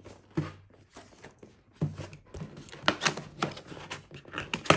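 Cardboard packaging being handled and opened by hand: an irregular run of sharp taps, scrapes and clicks as the box is turned and its sleeve and flap are worked open, the loudest click near the end.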